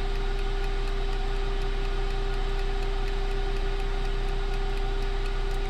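Countertop air fryer combo oven running while it bakes: a steady fan hum with one constant tone over a low drone, unchanging throughout.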